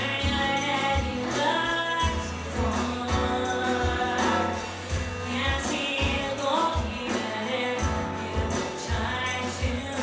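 A woman singing a song with acoustic guitar, tambourine and drums.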